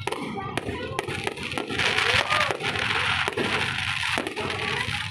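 Aerial fireworks bursting overhead, an irregular run of sharp cracks and pops over a continuous crackle.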